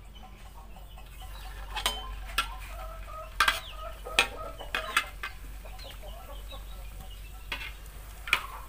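A metal spatula clinks and scrapes against a steel wok about eight times, as a lump of patongko dough is turned in a little hot oil. Chickens cluck faintly in the background.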